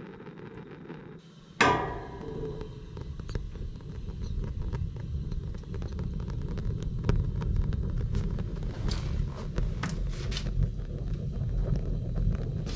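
A 30,000 BTU propane radiant heater's main burner lighting with a sudden loud ignition about a second and a half in, then burning with a steady low roar as the ceramic plaques heat up. Scattered light clicks sound over it.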